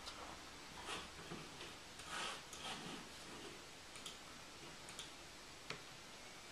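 Faint, irregular computer mouse clicks, about seven scattered over several seconds, one a little longer and scratchier about two seconds in, while the OS X Mountain Lion installation is being started.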